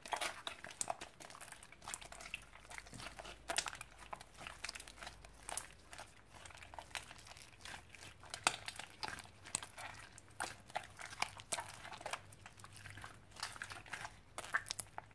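Pink jiggly slime being squeezed and kneaded in the hands, giving an irregular run of sticky clicks and small crackling pops, several a second.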